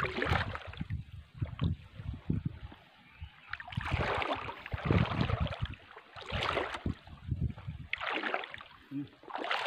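Someone wading through shallow seawater over reef rock, the water sloshing and splashing with each step in irregular swishes about once a second.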